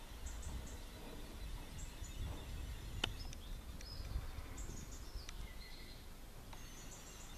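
Outdoor ambience: a low rumble with scattered short, high bird chirps, and a single sharp click about three seconds in.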